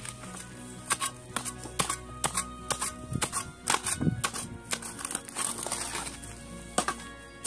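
Background music with steady held notes, over a shovel digging into dry soil: irregular crunching and scraping strokes, with a duller thud about four seconds in.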